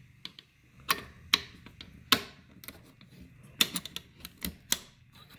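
Sharp, irregular metallic clicks and clacks from an AK rifle's safety lever and fire control parts being worked back into place by hand, about seven in a few seconds.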